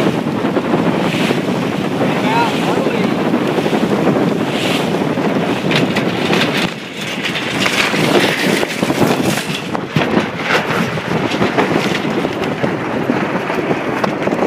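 Wind buffeting the microphone on a sailboat under way, with water rushing past the hull; the noise eases briefly about halfway through.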